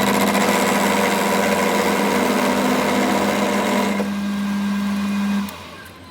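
A workshop machine running with a steady hum under a harsh, grating noise. The harsh noise eases about four seconds in, and the machine cuts off abruptly shortly before the end.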